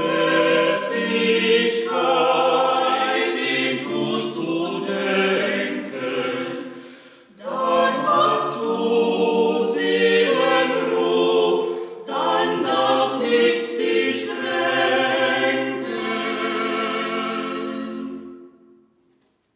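Four-part choir singing a chorale a cappella, phrase by phrase with short breaths between, its last chord dying away near the end.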